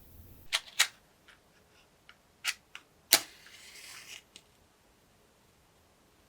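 Wooden candle wick crackling as it burns: a string of irregular sharp pops, the loudest just past the middle and followed by about a second of soft sizzle.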